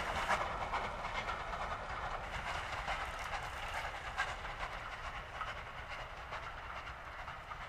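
Steam locomotive hauling a train of carriages, the running and wheel noise on the rails fading steadily as the train draws away.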